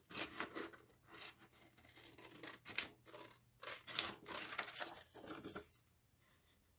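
Scissors cutting through printed copy paper: a series of irregular snips and rasping cuts that stop a little before six seconds in.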